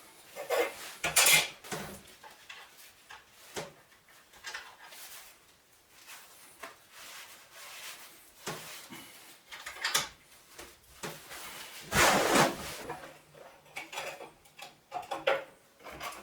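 Steel parts and hand tools being handled and set down: irregular metal clinks, knocks and scrapes, with the loudest clatters about a second in and around twelve seconds in.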